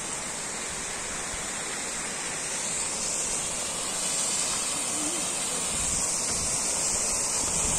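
Small waterfall pouring into a rock pool: a steady rush of falling water that grows gradually louder.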